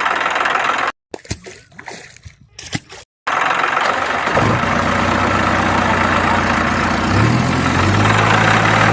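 Vehicle engine noise that cuts out abruptly about a second in. Only a few faint clicks are left for about two seconds. The engine sound then returns and settles into a steady idle, which steps up in pitch a little past the middle.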